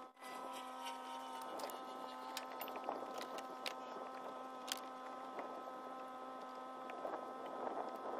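A steady hum with scattered light clicks and taps.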